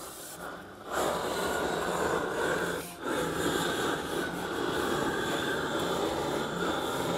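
Propane roofing torch burning with a steady rushing noise as its flame heats the roofing membrane being pressed down over a copper vent-pipe flashing. The noise comes up about a second in and dips briefly near three seconds.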